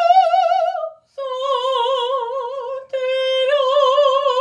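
A woman singing in classical operatic style with wide vibrato, the Italian words "cosa dirà": a held note that breaks off about a second in, then two lower held notes, the last starting plain and swelling into vibrato. Her teacher hears a little tension still in the voice.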